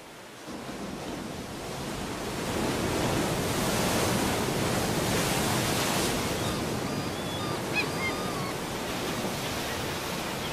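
Sea surf washing onto a sandy beach: a hiss of waves that swells up over the first few seconds and then eases off, with a few short high chirps a little after the middle.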